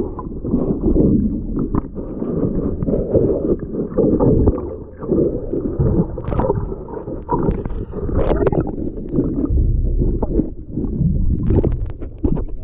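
Sea water sloshing and gurgling against a paddleboard close to the microphone, loud and irregular, with scattered small splashes.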